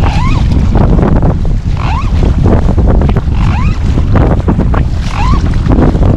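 Strong wind buffeting the microphone and choppy water splashing around a fishing kayak being paddled at sea. A short rising-and-falling squeak comes about every second and a half, in time with the paddle strokes.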